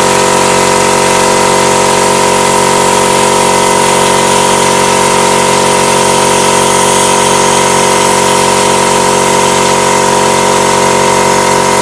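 Small 2 HP, 24-litre piston air compressor running steadily while recharging, with a hum of several steady pitches, over the hiss of a plasma cutter's air jet cutting 3 mm mild steel plate.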